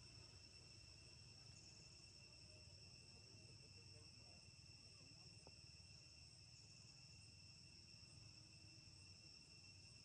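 Near silence with a faint, steady high-pitched insect chirring, crickets or similar, that never lets up, over a low hum.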